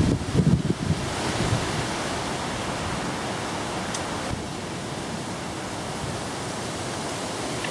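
Wind buffeting the microphone for about the first second, then a steady, even rush of wind and fast-flowing water from the river in flood.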